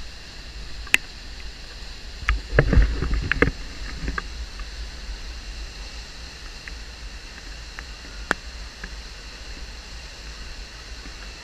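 Steady rush of a flash-flood waterfall, a muddy torrent plunging off a sandstone cliff into a pool, over a constant low rumble. A cluster of bumps and knocks comes about two to three and a half seconds in, and a few single sharp clicks stand out.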